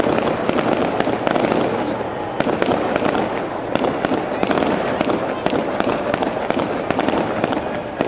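Fireworks bursting overhead at a display: many sharp cracks and bangs in quick succession over a continuous dense noise.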